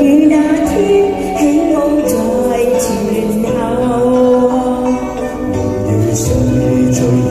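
A woman and a man singing a Chinese pop duet into microphones over a recorded backing track, the woman's voice first and the man's near the end.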